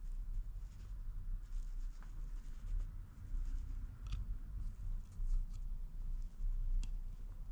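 Handling noise: faint rubbing and scratching as a short rubber vacuum hose is turned over in the hand, with a few light clicks, over a low steady rumble.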